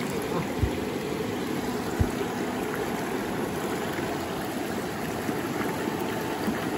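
Mountain stream water running steadily, with two soft low thumps about half a second and two seconds in.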